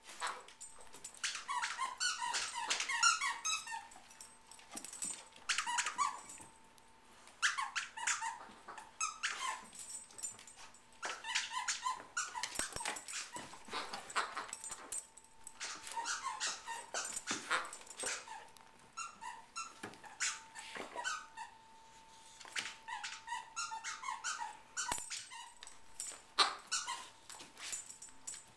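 Squeaky duck toys squeaked again and again in quick runs as Labradors chew on them, with short pauses between bouts.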